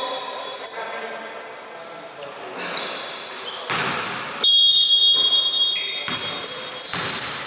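Basketball dribbled on a hardwood gym floor in a reverberant hall, with high-pitched squeaks.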